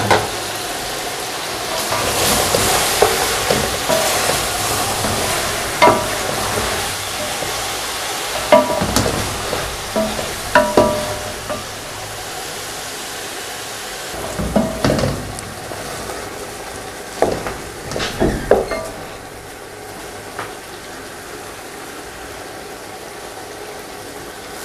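Chicken, potatoes and sliced tomatoes sizzling in an aluminium pot as a wooden spoon stirs them, the spoon scraping and knocking against the pot now and then. The knocks come mostly through the middle, and the sizzle grows quieter near the end.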